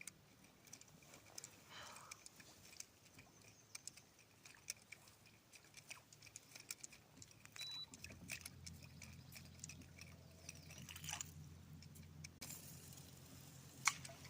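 Faint scattered clicks and ticks of fishing tackle being handled, with a low steady hum that comes in about halfway through and one sharper click near the end.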